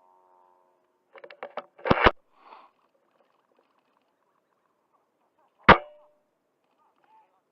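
Airsoft sniper rifle: a quick run of small mechanical clicks, then two sharp cracks in quick succession about two seconds in, and a single loud sharp crack with a brief ring near the end.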